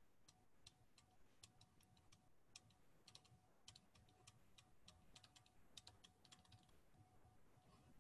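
Near silence, with faint, irregularly spaced light clicks.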